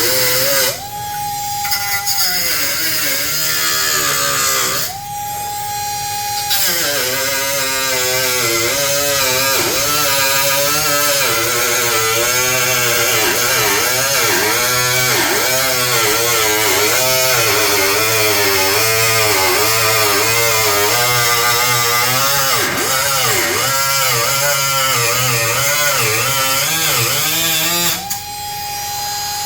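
Small cutoff-wheel tool cutting sheet steel. Its whine dips and wavers in pitch as the wheel loads in the cut, then rises to a steady, higher free-running pitch when lifted off, three times: about a second in, around five seconds in, and near the end.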